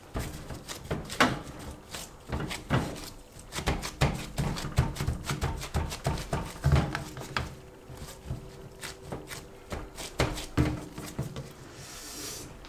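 Hands shaping cheese-filled bread dough, with irregular soft taps and knocks, a few a second.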